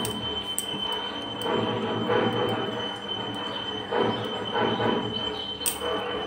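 Loudspeaker sound from a neighbouring puja, with a steady high whine running through it.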